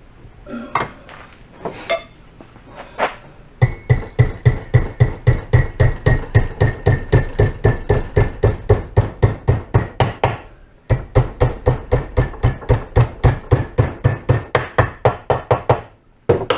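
Hammer striking a metal strip on a workbench to bend it into a bracket: a few scattered blows, then rapid steady hammering at about four blows a second with a ringing metallic tone, a brief pause about eleven seconds in, and another run of blows.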